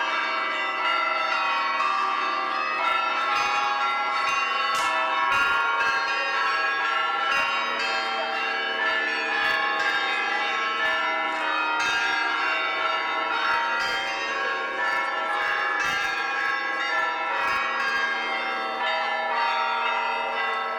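Orthodox cathedral bells rung in a continuous peal: many bells of different pitches struck in quick, overlapping succession, each strike ringing on under the next.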